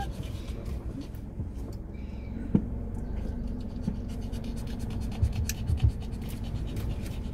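Low, steady rumble inside a car cabin as the car is slowly manoeuvred, with scratchy rubbing and a few soft knocks, one about two and a half seconds in and two more near the end.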